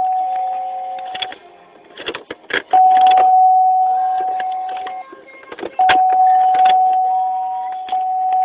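Warning chime of a 2002 Buick LeSabre, one steady tone that fades over about two seconds, sounding again and again, each time just after a burst of clicks and rattles. No cranking or engine sound follows: the car has a no-crank, no-start fault.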